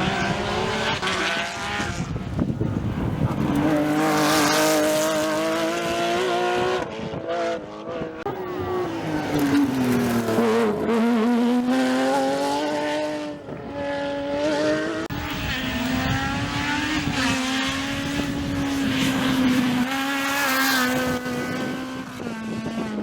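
Rally car engines at full stage pace, revving hard and climbing and dropping in pitch through gear changes and lifts. About ten seconds in, the engine note falls low as a car slows, then climbs again as it pulls away.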